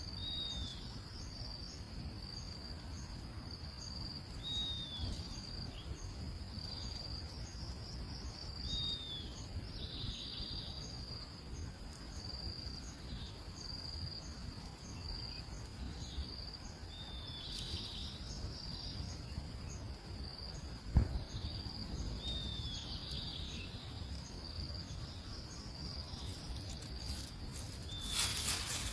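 Outdoor nature ambience: insects chirping in a steady, high, pulsing rhythm, with a bird giving a short falling call about every four to five seconds, over a low rumble. A single loud thump comes about two-thirds of the way through.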